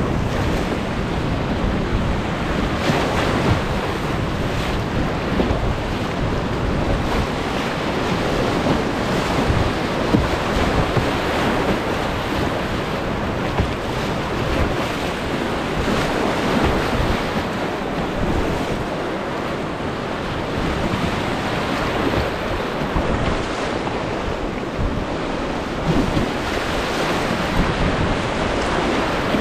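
Whitewater rapids rushing loudly around a kayak, with splashes as waves break over the bow.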